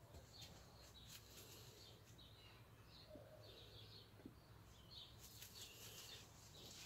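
Near silence outdoors, with faint bird chirps coming and going.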